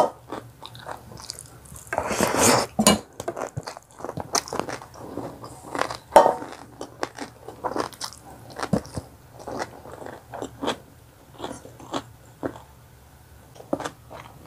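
A person chewing a mouthful of pancit canton noodles by hand, with wet mouth clicks and smacks, a louder noisy stretch about two seconds in, and quieter chewing near the end.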